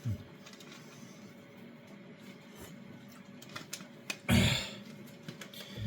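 A person blowing once, briefly, on hot food to cool it, about four seconds in, over a faint steady hum and a few small clicks.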